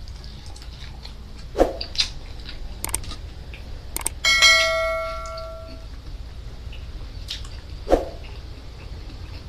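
Subscribe-button animation sound effect: mouse-style clicks, then a notification bell that rings once about four seconds in and fades over a second and a half. A few other sharp clicks fall before it and one near the end.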